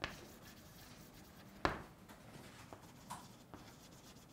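Chalk writing on a blackboard: faint scratching with a few short taps, the loudest about one and a half seconds in.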